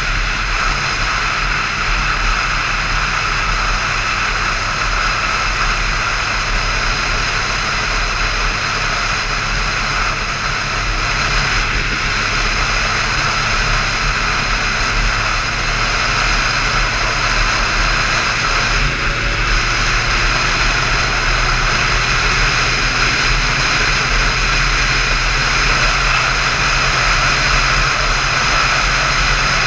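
Motorcycle cruising at a steady speed, its engine a constant drone under wind rushing over the microphone.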